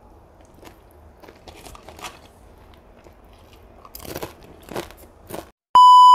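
Close-up mukbang eating of fried flat rice noodles: soft wet chewing clicks, then louder slurping of noodles about four seconds in. Near the end, after a brief gap, a loud steady test-pattern beep starts.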